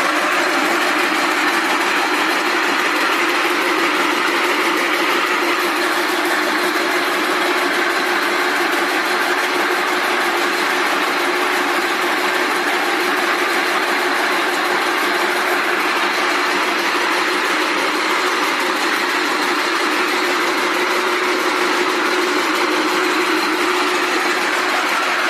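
Several rope braiding machines running together: a loud, steady mechanical din with a constant hum underneath.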